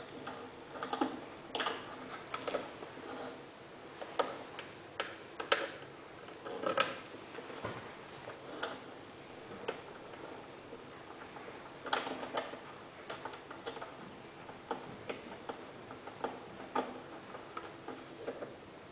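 Irregular plastic clicks and taps from hands working a cable and its black screw-cap cable gland into a weather station's plastic enclosure.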